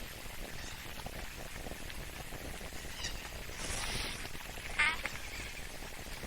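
Outdoor waterhole ambience through a webcam microphone: a steady hiss, a brief breathy noise about four seconds in, then one short, sharp chirping call just before five seconds.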